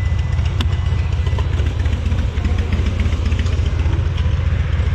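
BMW K1600B motorcycle's inline-six engine running steadily at a low, even pulse, with one sharp click about half a second in.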